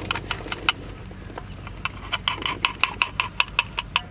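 Boiled sweet corn kernels tipped from a perforated metal strainer into a steel basin: a quick run of sharp clicks and taps, coming faster and louder in the second half.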